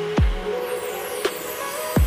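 Background electronic music: steady held tones with a few deep bass hits that drop in pitch.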